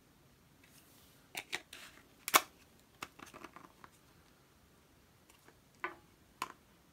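Small plastic slime tub being handled and its lid pressed shut: a series of sharp plastic clicks and snaps, the loudest a little over two seconds in, with light rustling in between and two more clicks near the end.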